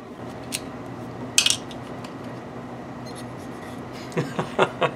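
Screwdriver and the thin metal cover plate on a corded drill's gear head clinking as the plate is worked loose and lifted off. A sharp metallic clatter comes about a second and a half in, and a quick run of light clicks and knocks near the end, over a faint steady hum.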